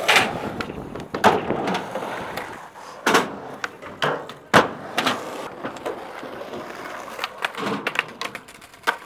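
Skateboard wheels rolling on concrete, broken by sharp clacks of the board popping and landing several times, the loudest about four and a half seconds in, with a grind or slide along the top of a ledge box.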